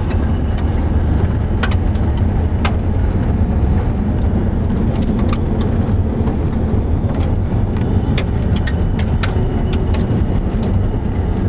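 Cabin noise of an SUV driving fast on a rough gravel track: a steady low rumble of engine and tyres, with frequent irregular sharp clicks of gravel and rattles from the bumpy surface.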